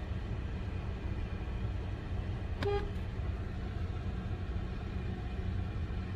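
Steady low rumble of a car, with one short car-horn toot about two and a half seconds in.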